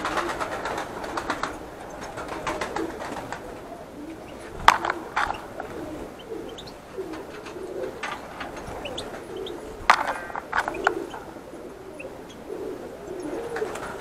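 Small finches, goldfinches, calling and twittering in a wire-mesh aviary, with low, wavering calls repeating underneath throughout. A few sharp clicks stand out, about five seconds in and again about ten seconds in.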